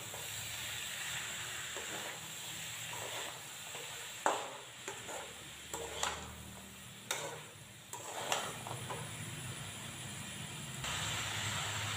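A spatula stirring and scraping potato and cauliflower pieces in a metal kadhai over a steady sizzle of frying masala, with several sharp scrapes against the pan between about four and nine seconds in. Near the end the stirring stops and only the frying sizzle goes on.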